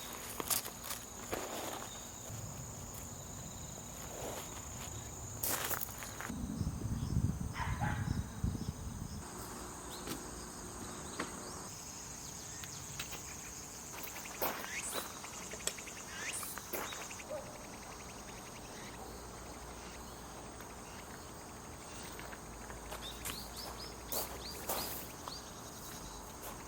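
Insects chirring steadily in the grass, with scattered footsteps and small clicks, and a brief low rumble a few seconds in.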